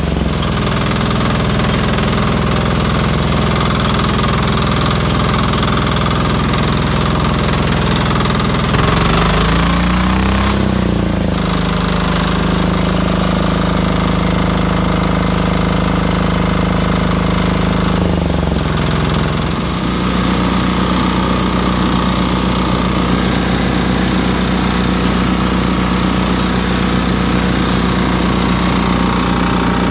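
Diesel engine of a 1969 Sears Suburban 12 garden tractor running loud and steady through a large turbo muffler. Its speed rises and falls briefly about a third of the way in, then drops to a lower steady speed about two-thirds in.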